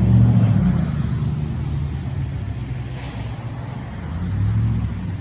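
Motor vehicle engines from passing road traffic, a low steady hum that is loudest at first, fades, and swells again near the end as another vehicle goes by.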